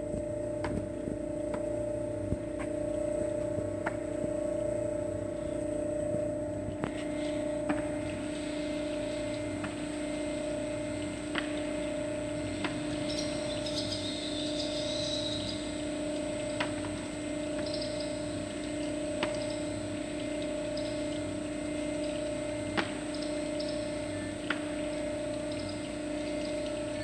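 Electric screw oil press running steadily while cold-pressing flax seed: a steady motor hum with two clear tones, and sharp irregular clicks every couple of seconds.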